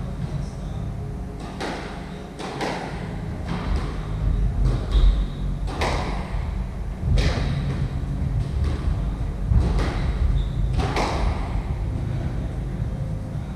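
Squash rally: a string of sharp hits of the ball off racquets and the court walls, roughly one a second, each echoing around the enclosed court, over a steady low rumble.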